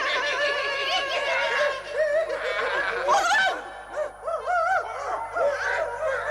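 A troop of monkeys chattering and squealing excitedly, many short high calls overlapping at once.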